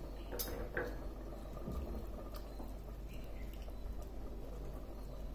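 Ladle stirring a wet mix of rice and coconut milk in a pressure cooker pot: soft liquid sloshing with a few light clinks, the sharpest clink about half a second in.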